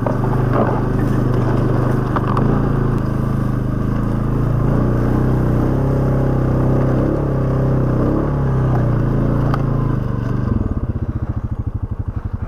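ATV engine running steadily under load through tall grass and brush, with a few sharp clicks along the way. About ten and a half seconds in, it drops back to an idle with an even, rapid thumping beat.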